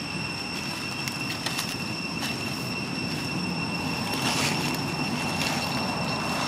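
Dry fallen leaves crackling and rustling under a northern pig-tailed macaque's feet as it walks, with a louder rustle about four seconds in. Behind it run a steady high-pitched whine and a low rumble of background noise.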